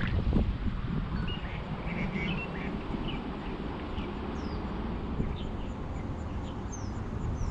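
Scattered birds chirping with short calls and a few falling whistles, over a steady low rumble of wind on the microphone.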